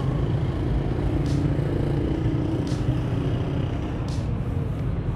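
Steady rumble of city road traffic, cars driving on the surrounding streets, with faint ticks about every second and a half.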